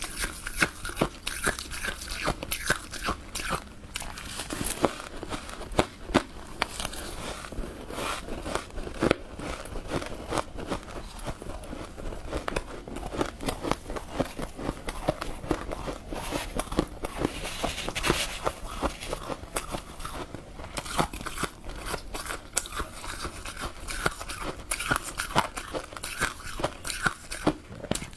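Close-up crunching and chewing of freezer frost (snow ice): a steady run of irregular crisp crunches with repeated bites.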